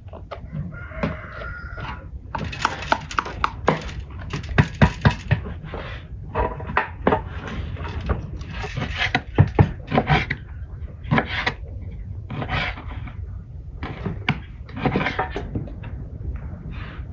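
Irregular knocks and clicks of kitchen work: a knife coring tomatoes and bell peppers over a metal basin, and near the end a knife cutting meat on a wooden board.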